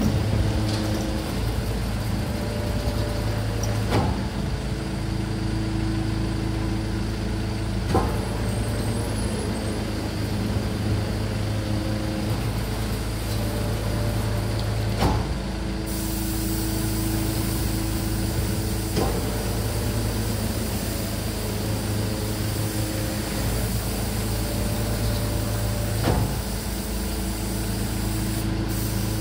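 Rotating-plate garbage truck running its compaction cycle: a steady mechanical hum from the engine and hydraulics, with short whines and a sharp metallic clunk every four to seven seconds as the loading plates move and change direction.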